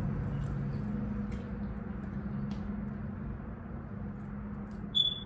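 Steady low hum of an electric fan running, with a few faint clicks of a fork against a plastic food tray and a short high squeak near the end.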